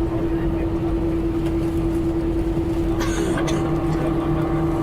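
Airbus A320 cabin noise on the ground after landing: a steady hum of the engines and air systems with one constant tone running through it. A short burst of noise comes about three seconds in, after which a few more steady tones join the hum.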